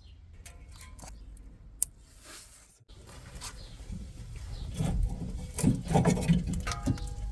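Hand tools and metal parts being worked on a car engine: scattered light clicks and one sharp tap, then scraping and rubbing with knocks that grow louder over the last few seconds.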